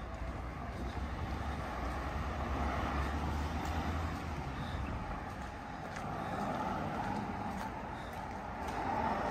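Road traffic: passing cars whose tyre noise swells and fades, loudest about three seconds in and again near the end, with a low engine rumble in the first few seconds.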